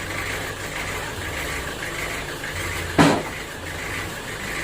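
An engine running steadily at idle, with a single sharp knock about three seconds in.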